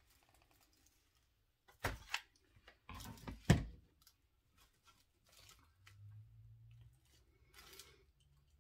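Craft materials handled on a tabletop: a sharp knock about two seconds in, then a short scrape ending in a louder knock around three and a half seconds.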